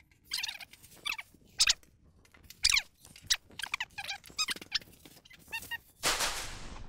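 Bubble wrap and paper wrapping rustling and squeaking as small wrapped parcels are pulled from a cardboard box and set down, in a string of short bursts, with a longer rush of rustling near the end.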